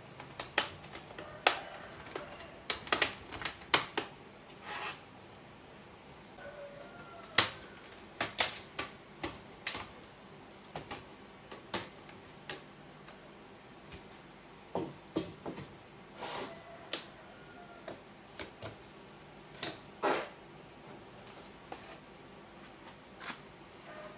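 Irregular sharp clicks and taps of plastic and small metal parts as a Lenovo IdeaPad laptop is taken apart by hand.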